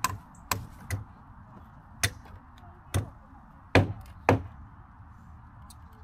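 Sharp knocks of a hand tool striking old, rotten timber as nails and screws are worked out of it: seven separate blows at uneven intervals, the two loudest close together about four seconds in.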